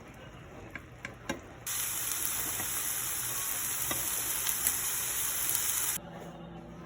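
Food sizzling in a frying pan: a steady hiss that starts suddenly about two seconds in and cuts off just before the end, preceded by a few light clicks.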